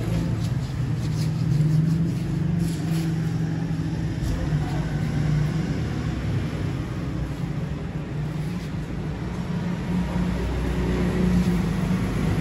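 An engine running steadily, a continuous low hum with no change in speed.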